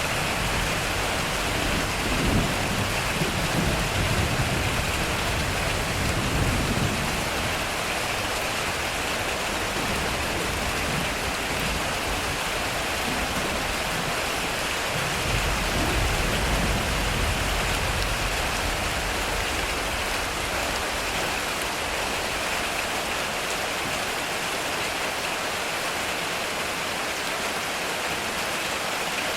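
Heavy rain falling steadily on a metal roof, with two rolls of low thunder rumbling: one over the first several seconds and another about halfway through.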